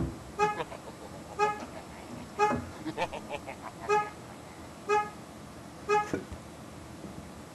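Chevrolet HHR's car alarm sounding through the horn: six short honks about a second apart. There is a thump just before the first honk.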